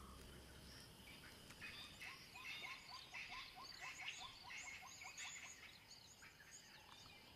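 Faint birds calling: a quick run of short rising calls, about three a second, with higher chirps over them through the middle few seconds.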